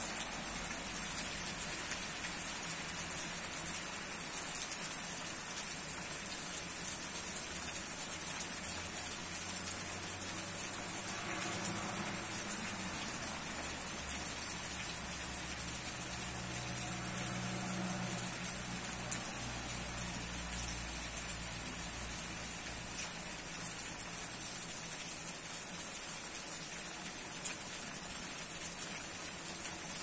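Hard rain falling steadily on tree leaves, an even hiss with a few sharp single drops tapping close by.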